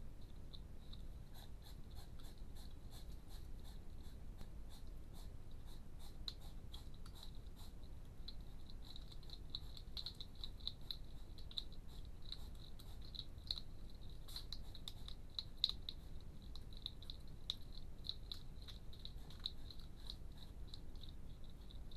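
Hedgehogs eating from bowls: faint, rapid, irregular crunching, clicking and smacking, over a low steady rumble.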